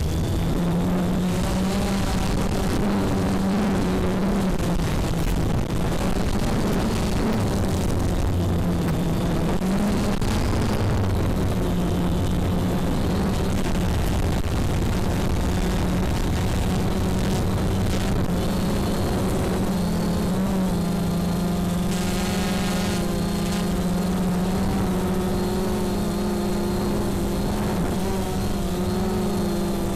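Multirotor drone's motors and propellers buzzing steadily, heard from the drone itself, the pitch shifting slightly as it manoeuvres.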